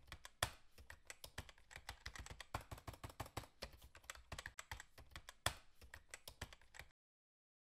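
Faint keyboard-typing sound effect: rapid, irregular key clicks, several a second, that cut off abruptly about seven seconds in.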